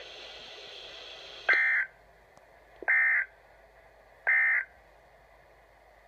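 Emergency Alert System end-of-message data bursts from a weather alert radio's speaker: three short, identical buzzy bursts a little under a second and a half apart, after a moment of faint hiss. They mark the end of the broadcast flood warning.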